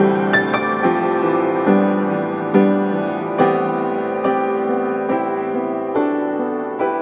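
Background music: a slow, soft piano piece, with a new chord struck about every second and left to ring.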